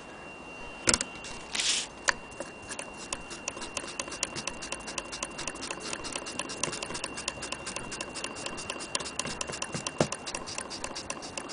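Willcox & Gibbs chain-stitch sewing machine running and stitching through cloth: a fast, even ticking of about eight stitches a second. Before it starts there is a sharp click and a short rustle.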